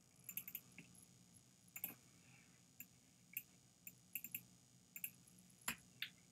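Slow, irregular computer keyboard keystrokes, about fifteen sharp taps in small clusters with one louder tap near the end, over a faint steady low hum.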